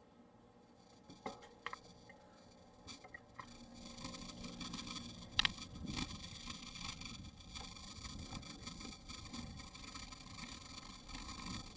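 Faint outdoor background noise with a few light clicks and taps, a sharper click about five and a half seconds in, and a soft low rumble from about four seconds on.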